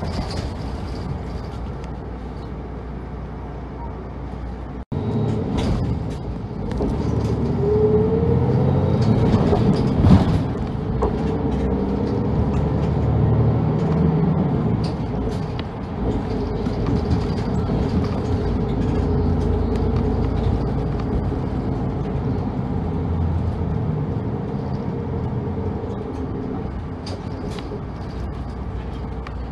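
Cabin noise inside a Kanto Railway route bus on the move: a steady engine hum and road noise, with a rising whine about eight seconds in as the bus speeds up, and a single sharp knock a couple of seconds later.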